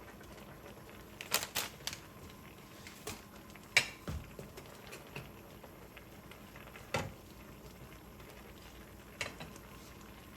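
Pot of ramen broth boiling steadily, with a few light knocks and clinks of a utensil against the pot, the loudest about four seconds in, as ramen noodles cook in it.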